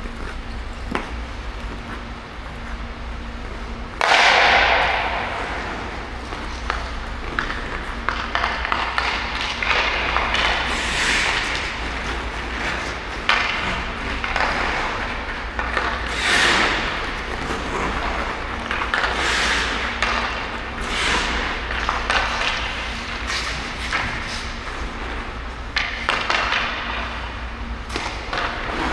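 Ice hockey skates carving and scraping on the ice in repeated hissing strokes, the loudest starting sharply about four seconds in. Scattered knocks sound between them over a steady low hum.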